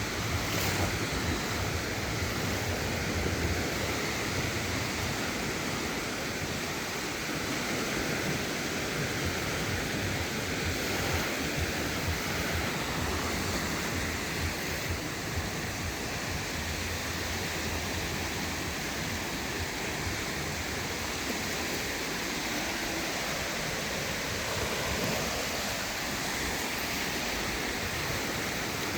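Sea surf washing steadily onto a beach, with a low wind rumble on the microphone.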